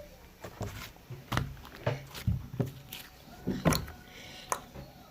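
Slime being squeezed and pressed by hand, giving a string of irregular sharp clicks and short pops.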